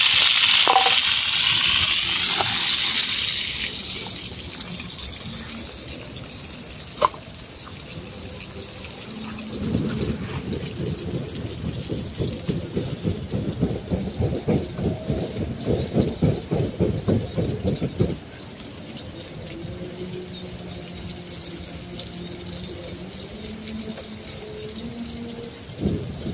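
Battered banana pieces deep-frying in hot oil in a pan over a wood fire, sizzling loudly at first, then fading after a few seconds. Partway through comes a rapid irregular run of low scraping knocks for several seconds, and birds chirp near the end.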